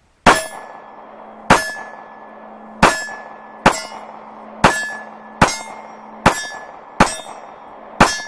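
Glock 26 9mm pistol firing nine shots in slow succession, about one a second. Each shot is followed by a short ringing tone.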